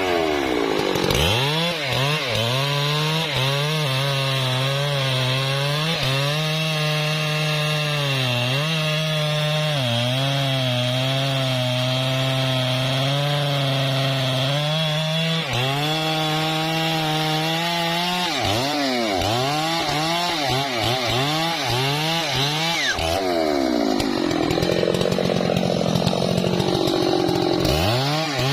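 Husqvarna 3120 XP chainsaw's large two-stroke engine running at high revs while cutting through trembesi wood. Its pitch holds steady for long stretches, then dips and recovers again and again as the chain bites into the wood, and swings up and down more widely from about 18 seconds in.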